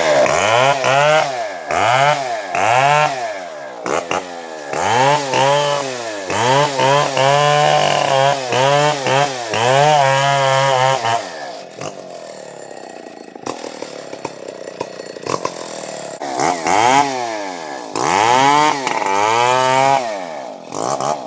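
Two-stroke chainsaw cutting coconut palm wood, its engine revving up and down about once a second and holding at high revs for a few seconds. It drops back to a lower, quieter running level for a few seconds past the middle, then revs up and down again near the end.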